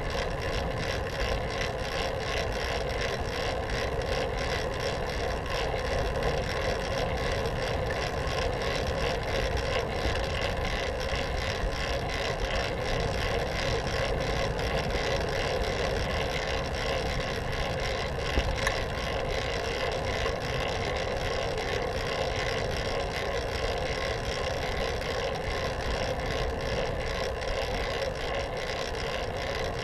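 Fixed-gear bicycle rolling steadily on a paved path: continuous whir of the chain and tyres on asphalt, picked up by a handlebar-mounted camera, with one brief click a little past halfway.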